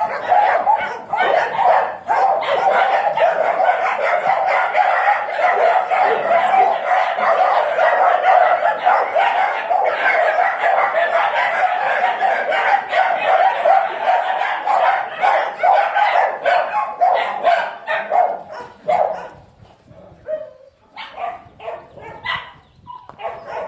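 Several dogs barking together in a continuous din, which thins out to scattered barks near the end.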